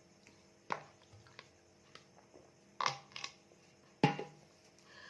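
Plastic Coca-Cola bottle being handled: a few sharp knocks and clicks with quiet between them, the loudest about four seconds in.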